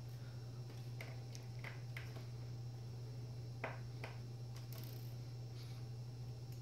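A handful of faint, short clicks and taps as small parts inside an opened Insignia Flex 8 tablet are handled and prised with a small screwdriver, over a steady low hum.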